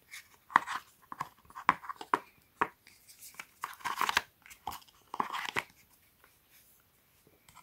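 Rustling, crinkling and light clicks of iPhone box accessories being handled: the plastic EarPods case, its paper tab and the charger set back into the cardboard tray of the box. The noises come thick for about five seconds, then almost stop.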